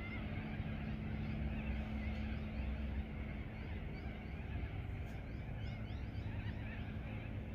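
Outdoor riverbank ambience: a steady low rumble with a faint steady hum, and birds chirping quickly in the background, most clearly in the second half.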